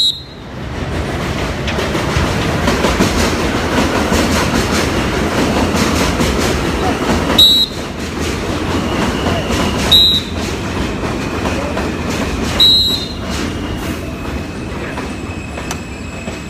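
Four short, sharp blasts on a Fox 40 pealess whistle, the sit signal to a dog in training: one right at the start and three more a few seconds apart in the second half. Under them runs the rumble of a passing train, which swells, then slowly fades, with a thin steady wheel squeal toward the end.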